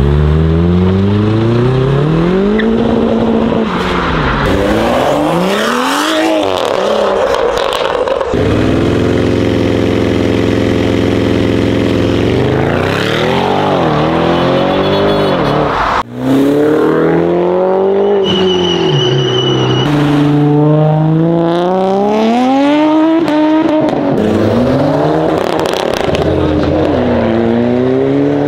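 Modified car engines and exhausts revving hard and accelerating away one after another, the pitch rising and falling again and again, with a steadier held rev for a few seconds near the middle. A short, steady high whine comes in for about two seconds in the second half.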